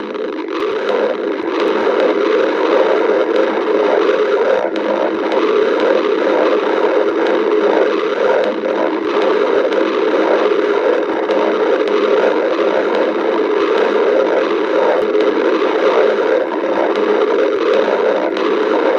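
A person's stomach growling, a steady gurgling rumble that goes on without a break: the sound of an empty, hungry stomach.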